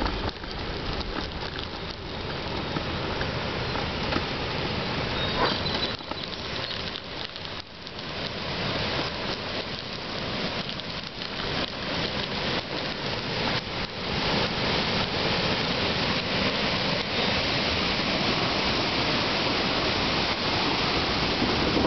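Bicycle tyres crunching over a crushed-stone gravel path, a dense crackling hiss that gets louder about two-thirds of the way through.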